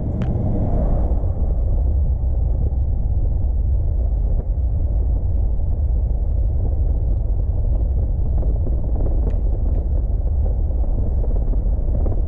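A car driving: steady, low road and engine rumble with no break.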